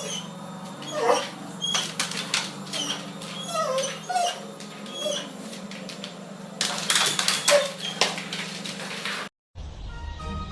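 A dog whimpering and yipping in short high-pitched cries, again and again, over a steady low hum, with a few knocks among them. The cries stop about nine seconds in.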